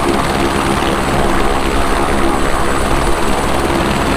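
Helicopter running loudly and steadily, with rotor beat and a thin high turbine whine.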